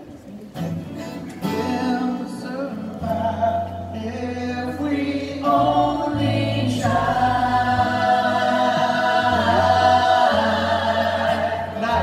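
A group of young voices singing together in harmony over a live band of guitars and drum, with long held notes that grow fuller and louder about halfway through.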